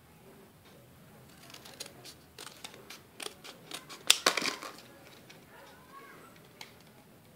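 Scissors snipping through a microSD card's cardboard-and-plastic blister packaging: a run of sharp cuts and crunches starting after about a second, loudest around four seconds in, then dying away.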